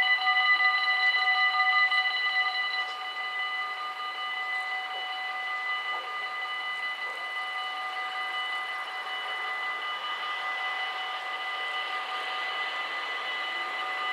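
Dutch AHOB level crossing warning bells ringing steadily, dropping in level about three seconds in. A train's approach grows in the last few seconds.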